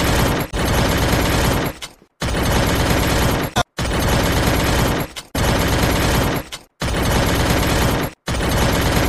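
Machine-gun fire sound effect in a dance backing track: repeated bursts of about a second and a half, each cut off abruptly by a short silence.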